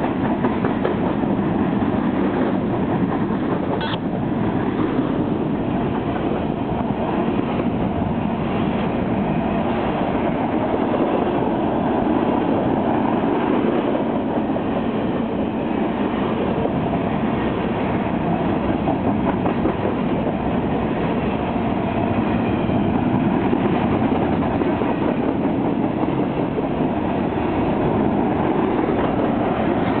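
Cars of a freight train, mostly covered hoppers, rolling past close by: a steady rumble of steel wheels on the rails.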